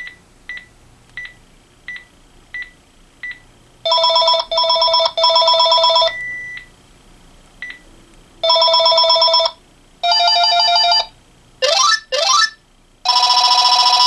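Panasonic KX-TG6521 cordless phone handset: a row of short beeps about every two-thirds of a second, then several different electronic ringtones played in turn, warbling trills and rising sweeps with short gaps between. The ring sounds distorted, which the owner puts down to weak batteries.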